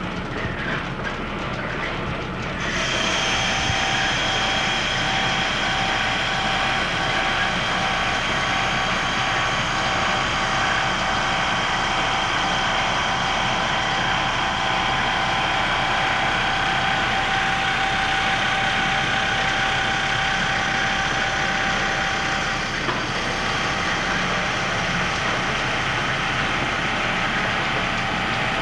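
Old belt-driven universal grinding machine running. About three seconds in, its grinding wheel starts a light cut on a round steel part under a water-and-oil coolant, a steady hiss with a thin steady whine over it.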